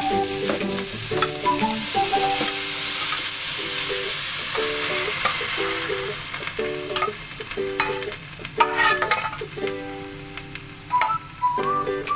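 Pork belly, onion, garlic and ginger sizzling in oil in a pot. The sizzle dies down about halfway through as boiled mung beans and their cooking water are poured in. Light background music with plucked notes plays throughout.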